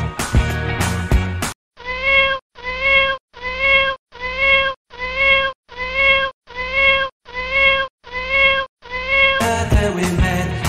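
Background music breaks off after about a second and a half. A cat's meow follows, repeated ten times at an even pace of about one every three-quarters of a second, each exactly like the last as if one recording were looped. The music comes back near the end.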